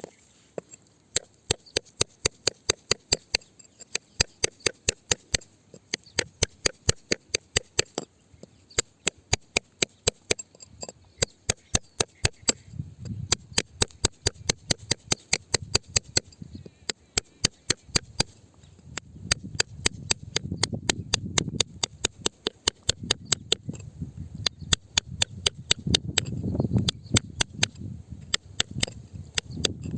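A digging or hammering tool strikes rock with sharp, regular blows about three a second. From about midway a low rumbling scrape swells in and out underneath.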